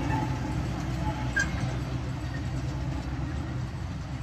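Severn Lamb Rio Grande Mk2 miniature locomotive running steadily with its 15-inch gauge train, a low engine hum under the rumble of wheels on the track, slowly fading.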